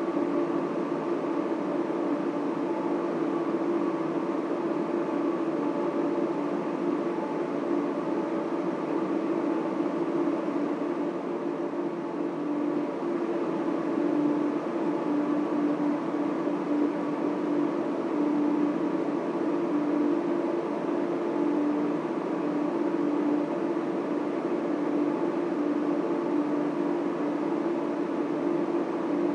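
Data center machinery running: a steady, unchanging drone with a constant hum and a fainter higher whine over a rush of air.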